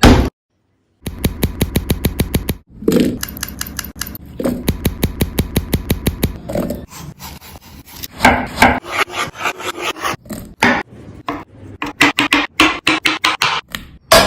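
Rapid rhythmic scraping strokes, about ten a second, in several runs broken by short pauses, after a brief loud sound at the very start.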